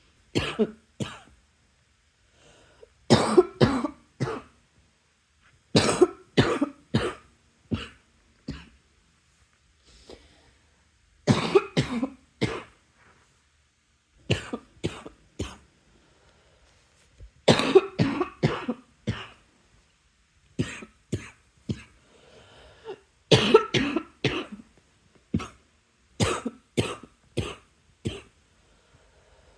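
A person coughing in repeated fits, each of three to five quick coughs, coming every two to three seconds with short quiet gaps between them.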